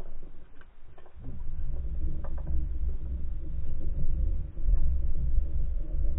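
Low, steady underwater rumble with a few faint clicks, building up about a second in.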